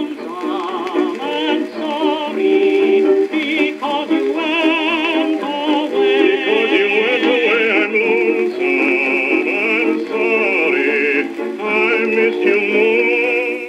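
An old 78 rpm record from 1926 playing on a Jensen JTA-230 turntable. It is early recorded music with a wavering, heavy-vibrato melody line on top and a thin sound with no deep bass.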